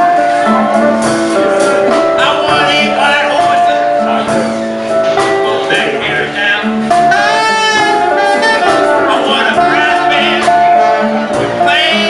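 Small street jazz band playing: an alto saxophone carries the melody over a large low-pitched saxophone, with a steady drum and cymbal beat.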